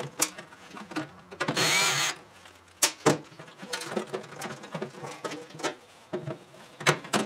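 Cordless drill-driver running once for about half a second, roughly two seconds in, its pitch rising slightly. Small clicks and rattles of metal parts and wiring being handled on a steel bench.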